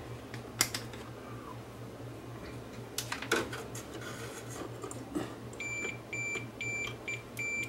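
Fluke digital multimeter's continuity beeper sounding in a stuttering run of short high beeps, starting a little past halfway, as the probes make and break contact across the TV's fuse: the beep shows the fuse is intact, not blown. Before it, a few light clicks from the probes being handled.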